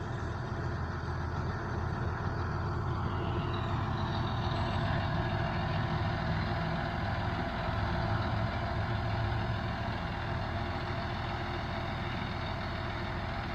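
International Harvester 886 tractor's diesel engine running steadily, a little louder for a few seconds in the middle.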